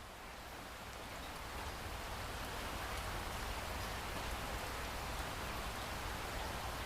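Steady rain falling, fading in over the first couple of seconds, with a steady low rumble underneath.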